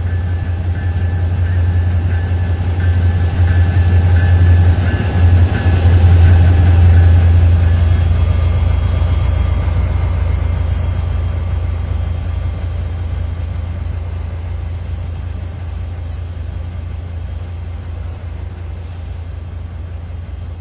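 Diesel locomotive engine running with a steady low drone, growing louder over the first several seconds and then slowly fading.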